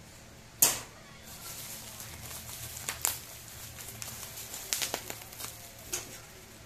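Plastic courier pouch and black bubble wrap being torn and crinkled by hand: a loud sharp rip about half a second in, then scattered crackles and smaller rips.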